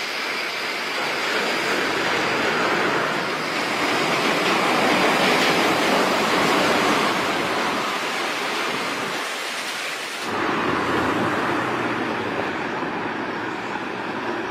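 Suspended monorail car running along its overhead beam: a steady rushing rumble that swells as it passes and eases off, then changes abruptly about ten seconds in to a similar, deeper rumble.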